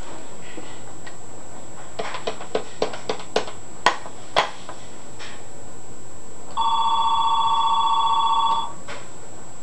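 Clicks and knocks of a corded phone's handset being lifted and set back on its hook. Then the phone's electronic ringer warbles once for about two seconds, a single ring set off by the homemade intercom circuit.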